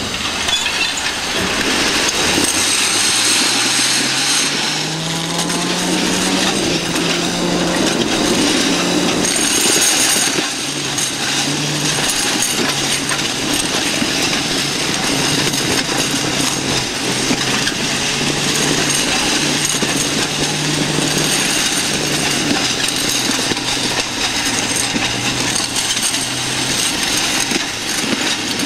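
Metal rollers of a long roller slide rattling steadily under a rider sliding down it. A low hum within the clatter rises in pitch over the first few seconds, then holds.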